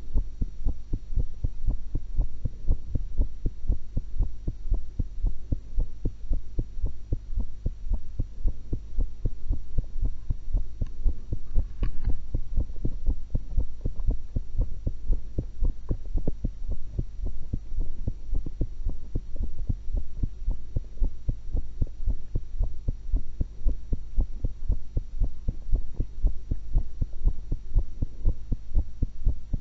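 A person's heartbeat heard through a stethoscope: an even run of low lub-dub thumps over a steady low hum.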